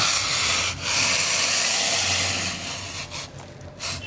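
Hot tomato masala in a kadai sizzling with a loud, rough hiss as hot water is poured in, in one long stretch with a short break under a second in, fading about three seconds in, then a brief burst near the end.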